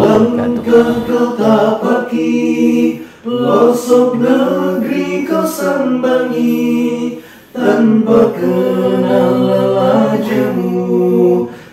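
An unaccompanied vocal group singing a song in harmony, in long held phrases with two short pauses between them.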